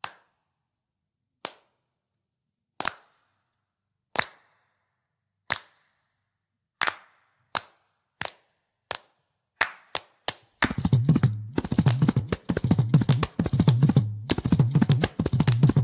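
Kanjira frame-drum music: single sharp strokes about a second and a half apart, then twice as fast and quickening. About ten and a half seconds in, it breaks into a dense, fast rhythm with deep bass strokes.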